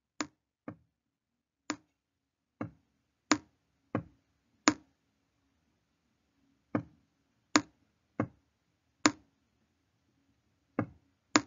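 About a dozen short, sharp clicks at uneven intervals, with a gap of about two seconds near the middle. They come one per pen stroke as the word 'buffalo' is handwritten on screen. A faint low hum runs underneath.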